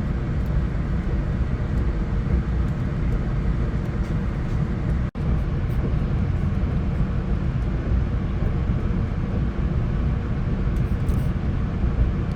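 Steady low rumble of a VIA Rail passenger train, heard from inside the coach while it runs, with a momentary break in the sound about five seconds in.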